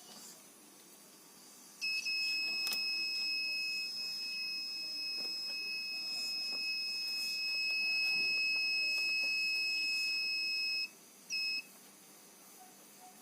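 12 V buzzer of a homemade laser tripwire alarm sounding one steady high-pitched tone for about nine seconds, then a short second beep near the end: the alarm going off because the laser beam to the LDR sensor is broken.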